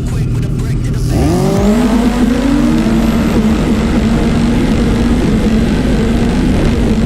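Racing jet ski engine running. About a second in its pitch climbs quickly, then it holds a steady note.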